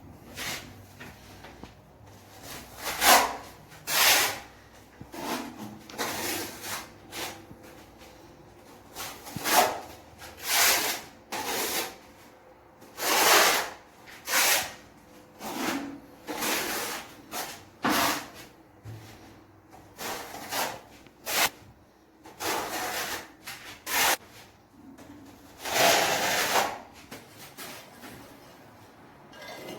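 A hand tool scraping across a surface in irregular strokes, about twenty of them, each lasting under a second with short pauses between.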